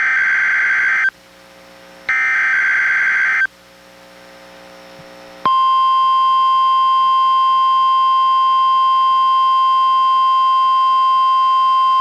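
NOAA Weather Radio test transmission: the end of one SAME alert-header data burst, then a second burst of just over a second about two seconds in. After a two-second pause, the steady 1050 Hz warning alarm tone starts about five and a half seconds in and holds.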